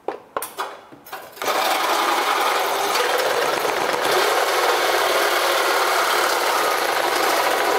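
A few light knocks, then a Sawzall reciprocating saw starts about a second and a half in and runs steadily. Its blade is cutting slowly through the silicone seal between a granite countertop and the cabinet beneath.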